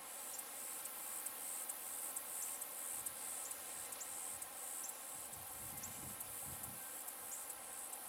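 Insects calling in a faint, high-pitched chorus that pulses a few times a second, with some faint low rumbling a little past the middle.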